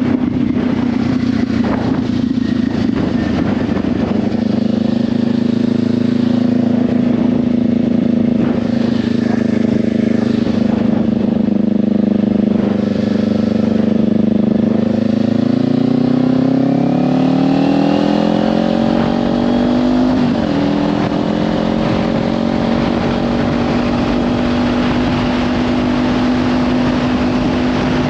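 Kawasaki Ninja 500's parallel-twin engine through a Leovince slip-on exhaust. It runs at steady revs, then climbs in pitch as the bike accelerates about halfway through, dips briefly for a gear change, and settles at higher revs. Wind rushes over the helmet-cam microphone throughout.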